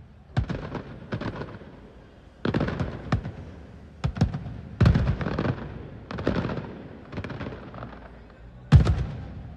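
Aerial fireworks bursting overhead: a string of about eight sharp bangs at uneven intervals, each fading away in a rumble, with one of the loudest near the end.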